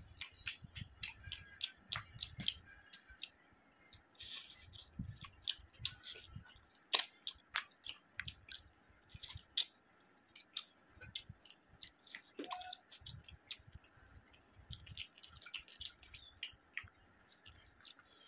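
Close-miked chewing of rice and curry eaten by hand, with many sharp wet mouth clicks and lip smacks scattered throughout.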